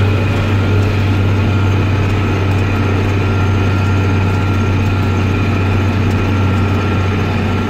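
Case IH Magnum tractor's diesel engine running steadily at road speed, a strong, even low hum heard from the driver's seat.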